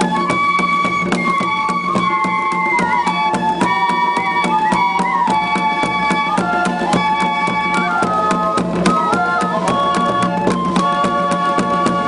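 Bamboo suling flute ensemble playing a folk melody in several parts over a steady drum beat of about four beats a second.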